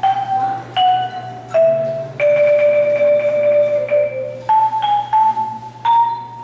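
Solo xylophone playing a simple melody in single struck notes. The notes step down in pitch, then one note is held for about two seconds, and the notes climb again near the end.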